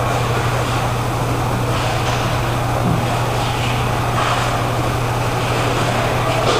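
Steady rumble of an indoor roller hockey rink during play, under a constant low hum, with a few faint, scattered clatters that fit inline skate wheels rolling on the plastic tile floor and sticks at the far end.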